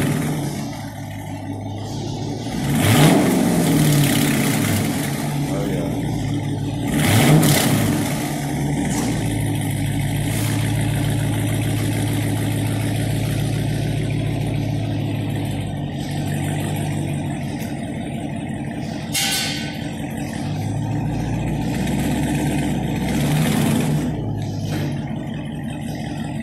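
2019 Dodge Charger R/T's 5.7-litre HEMI V8, with its mid mufflers deleted and the resonators still on, settling from a fresh start into idle. It is blipped twice, a few seconds apart, about three and seven seconds in, then idles steadily with a lighter rev near the end.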